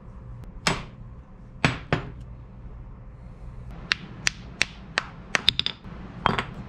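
Hand tools knocking on a small glued wooden frame to break it away from a set plaster casting: three heavier knocks, then a quick, irregular run of sharper taps.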